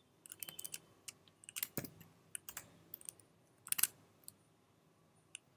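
Typing on a computer keyboard: irregular key clicks, bunched in the first four seconds, then a few scattered ones.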